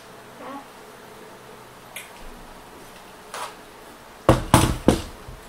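A G36C replica rifle set down on a tabletop close to the microphone: a cluster of loud, sharp knocks near the end, after a few faint clicks of handling.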